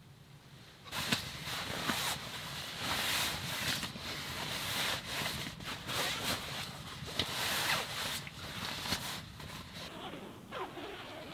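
Fabric rustling and rubbing as a sleeping bag is handled and shifted about: a run of quick swishes and scrapes that starts about a second in and eases off near the end.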